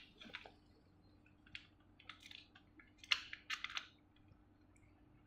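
Scattered plastic clicks and taps from handling the dust bin of a Dyson V10 cordless vacuum while trying to release it, the loudest about three seconds in.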